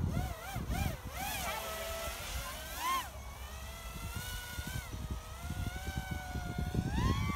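FPV racing quadcopter's electric motors whining, the pitch swooping up and down in quick surges for the first few seconds with a sharp climb about three seconds in, then holding steadier before rising again near the end as the throttle changes.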